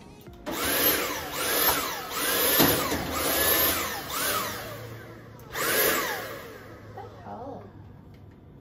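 Cordless vacuum cleaner's motor stuttering about six times, each time whirring up and dying away within a second, then fading out: the battery is flat.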